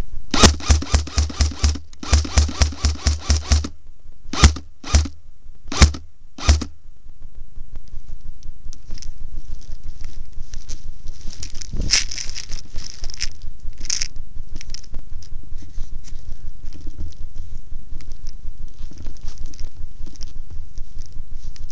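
Airsoft gun firing two rapid full-auto bursts, then four single shots about half a second to a second apart. Then steady rustling and crackling as the player pushes through dry grass and brush, with wind on the microphone.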